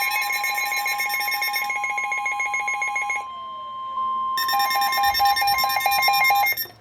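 Emergency Alert System alert tones for a severe thunderstorm warning: a steady tone under rapid, shrill beeping. The beeping drops out for about a second just after the middle, then comes back before the tones stop.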